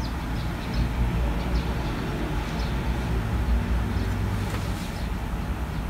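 Steady low rumble of distant traffic, with scattered short, high chirps over it.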